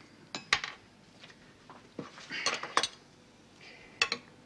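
Cutlery and dinner plates clinking on a table: a scatter of sharp clinks with a couple of short scrapes.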